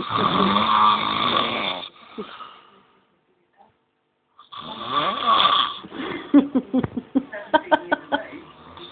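A sleeping man snoring loudly: a long snore at the start, then another about four and a half seconds later that breaks into a rapid fluttering rattle.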